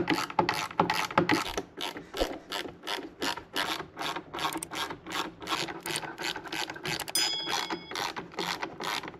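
Hand ratchet wrench clicking in a quick, even rhythm of about four strokes a second as it undoes bolts.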